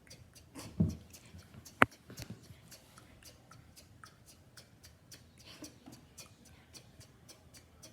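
2001 Honda CR-V turn signal clicking in a steady, quick rhythm. A dull thump comes just under a second in and a single loud sharp click about two seconds in.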